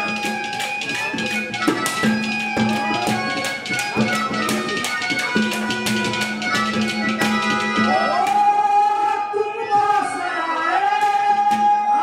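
Live Haryanvi ragni accompaniment: harmonium holding reedy chords over a dholak hand drum beating a fast, even rhythm. About two-thirds through, a melody line with sliding pitch bends comes to the front.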